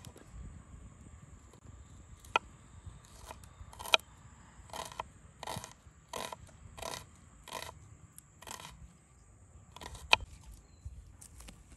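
Hand food-preparation sounds: a run of short scraping strokes, about one every 0.7 seconds in the middle, with three sharp single clicks spread through.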